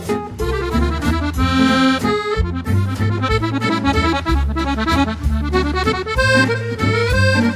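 Instrumental background music: a quick-moving melody of short notes over a sustained bass line.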